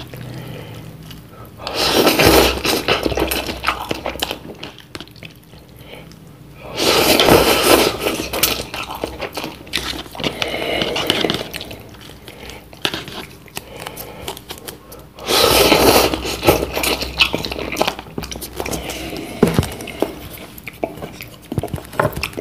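Loud slurping of instant curry cup noodles, three long slurps about two seconds, seven seconds and fifteen seconds in, with chewing and a wooden spoon scraping the paper cup in between.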